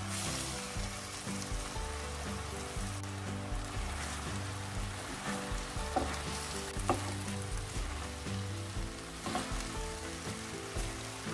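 Sundae and vegetables in a thick chili-paste sauce sizzling in a frying pan, stirred with a spatula. The spatula gives a few sharp clicks against the pan about halfway through.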